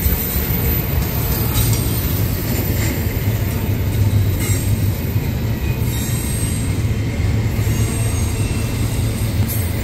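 Intermodal freight cars (double-stack well cars carrying trailers and containers) rolling past at speed: a steady rumble of steel wheels on rail, strongest in the low end.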